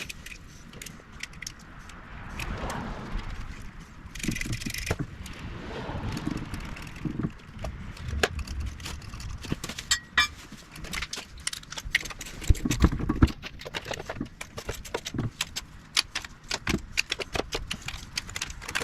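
Metal hand tools clinking and clicking against engine parts while a carburetor is bolted down, with irregular quick runs of clicks, denser in the second half, and a couple of dull thumps about two thirds of the way through.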